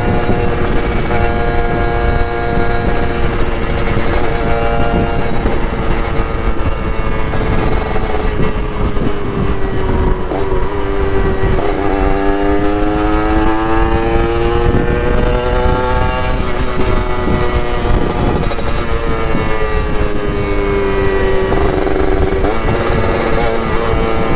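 Yamaha RX-King's ported single-cylinder two-stroke engine running under way, its pitch rising as it pulls and dropping sharply at each gear change, several times, over a steady low rumble.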